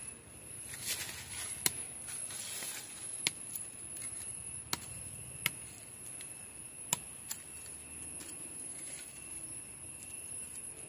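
A curved blade nicking into tree bark: about six sharp, short clicks at irregular intervals over a faint steady hiss.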